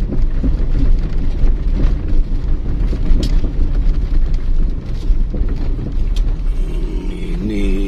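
Car driving slowly over a rough, rutted dirt road, heard from inside the cabin: a steady low rumble of engine, tyres and suspension, with a couple of sharp knocks as the wheels hit bumps.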